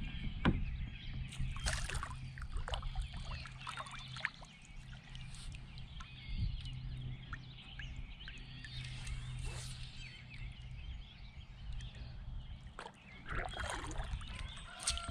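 Light water splashes and sloshing beside a kayak as a hooked redear sunfish is played on a fly rod, over a steady low hum.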